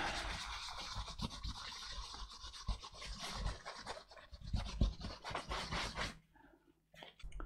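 Kitchen towel scrubbing old thermal paste off a laptop heatsink's metal cold plate: a rapid, scratchy rubbing that stops about six seconds in.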